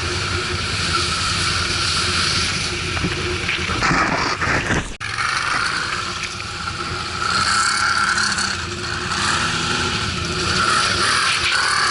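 ATV engines running, with a steady rushing noise over the engine sound; the sound drops out for an instant about five seconds in.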